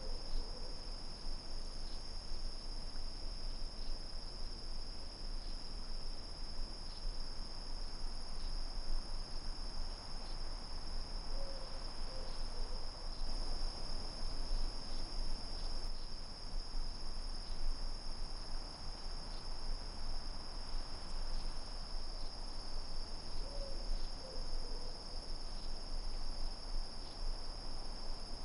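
Night crickets chirring steadily at a high pitch over a low background rumble. A short two-note hoot sounds twice, about twelve seconds apart.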